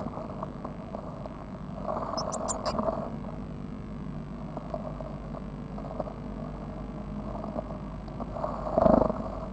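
Nearly fledged blue tit chicks shuffling and scratching about in the nest material of a nest box as they preen, with a quick run of a few high cheeps about two seconds in and a louder bump near the end.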